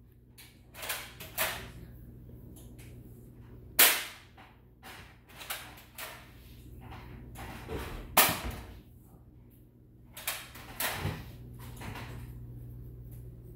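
Toy foam-dart blaster firing, a string of sharp snapping shots a few seconds apart, the loudest about four and eight seconds in, with softer knocks between.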